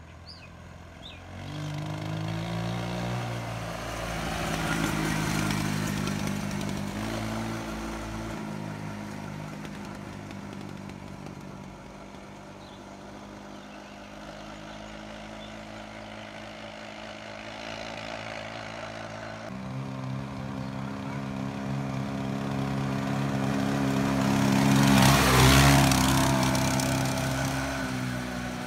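Small go-kart engine running as the kart drives along the street. It revs up and pulls away early on, runs steadily, then grows louder to a peak as the kart passes close near the end.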